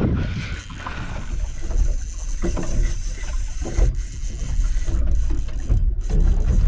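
Small boat on open water: a steady low rumble with wind buffeting the microphone and a few light knocks.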